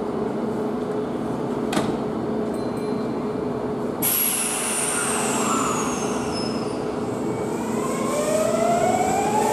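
Kintetsu 9820 series electric train starting to pull away: a steady hum at standstill, then about four seconds in a high whine starts suddenly and falls in pitch, and from about eight seconds the VVVF inverter and traction motor whine climbs steadily as the train accelerates.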